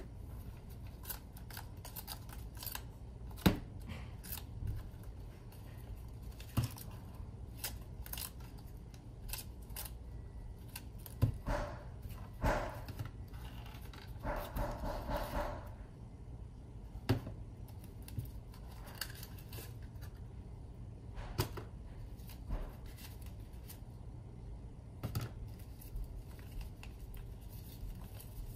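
Folded paper model being handled: scattered light clicks, taps and rustles as the paper frame and prism pieces are flexed, pulled apart and set down on a cutting mat, with a denser stretch of rustling about halfway through.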